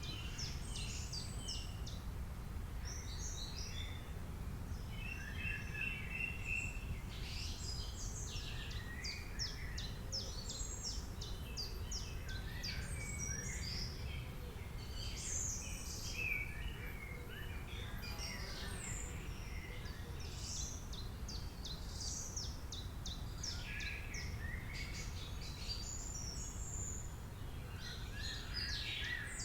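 Several songbirds chirping and singing, overlapping quick chirps and trills throughout, over a steady low background rumble.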